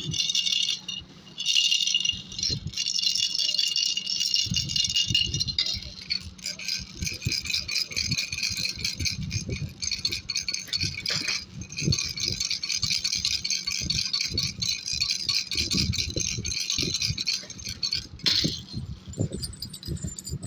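Baby rattle shaken on and on, a steady high jingling tinkle with soft low knocks from the shaking; it breaks off briefly about a second in.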